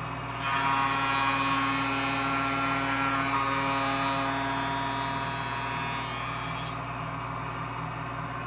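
A wood shaper with a round-over bit makes its final pass along the edge of a cabinet door stile. The cutting hiss starts about half a second in and stops a little after two-thirds of the way through, over the steady running of the machine.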